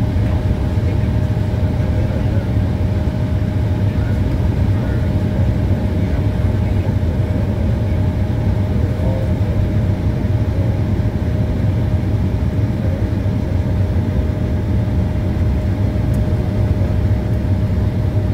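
Airliner cabin noise while taxiing: a steady low rumble of the jet engines at idle, with a thin steady hum above it.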